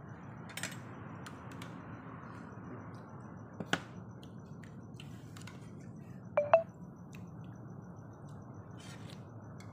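Spoons and forks clinking and scraping on ceramic plates and bowls during a meal: scattered light clicks, a sharper clink a little under four seconds in, and two short ringing clinks about six and a half seconds in, the loudest of the lot, over a steady low hum.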